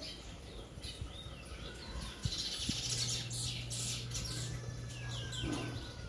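Caged bullfinch singing: a run of quick chirps and twittering whistled notes, thickest in the middle, then one long thin whistle near the end.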